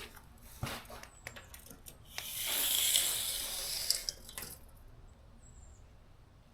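Hand spray bottle misting soapy water onto the car panel: a steady hiss lasting about two seconds, after a few light handling clicks.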